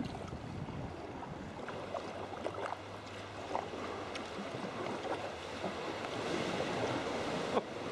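Sea water sloshing and splashing against a sea kayak as it is paddled through swell, with small drips and taps from the paddle strokes.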